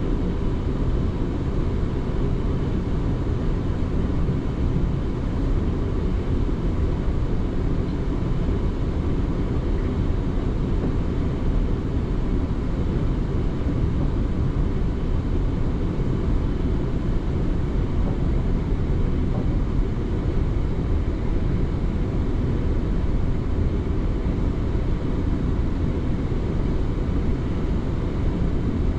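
Inside a passenger train carriage at speed: a steady low rumble of wheels on the track and the running train, with a faint steady whine above it.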